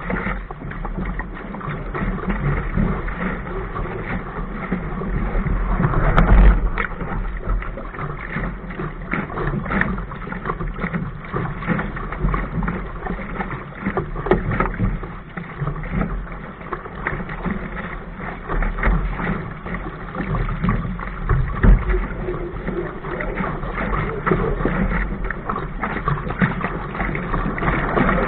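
Water rushing along and slapping against the hull of a sailing dinghy moving fast through choppy water, with frequent sharp splashes of spray off the bow.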